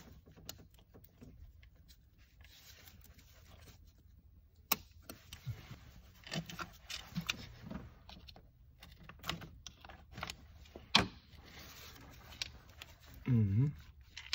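Hand-work on a car engine's oil filter housing as it is worked loose and lifted out: scattered light clicks, knocks and rattles of plastic and metal parts, with one sharper knock about 11 seconds in. A short hum of voice near the end.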